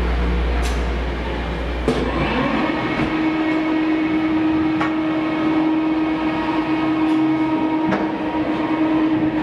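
Shipboard cargo elevator running: a steady machine hum that glides up in pitch and then holds, about two and a half seconds in. A few sharp metal knocks sound over it.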